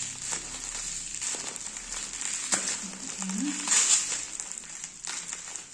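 Plastic bubble wrap crinkling and crackling as it is pulled and turned in the hands, unwrapping a small bottle. The wrap makes irregular small clicks, loudest about four seconds in.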